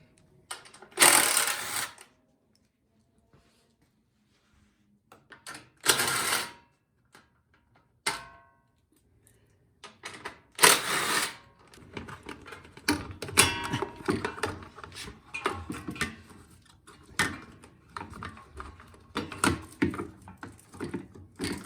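Bolts being taken out of a snowblower's plastic shroud with a tool: loud bursts about a second long, three of them spread across the first half, then a long run of irregular clicking and clattering of tools, bolts and plastic parts.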